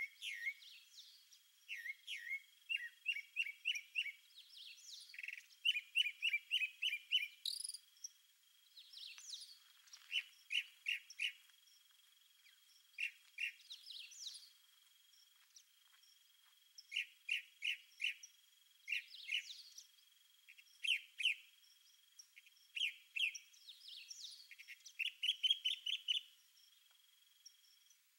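Wild birds chirping in short, rapid series of high notes, several bouts following one another with short gaps, over a thin steady high tone.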